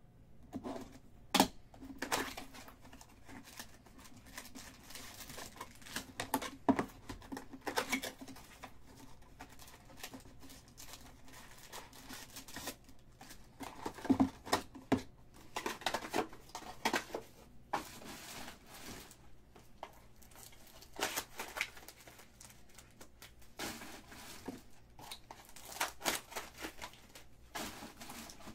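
Baseball card pack wrappers crinkling and tearing as packs are pulled from a 2018 Bowman Chrome hobby box, stacked and opened, with irregular rustles and a few sharp taps.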